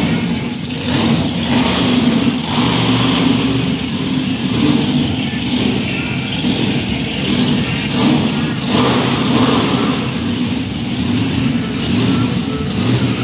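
Monster truck engine running, a loud steady rumble that swells a little now and then.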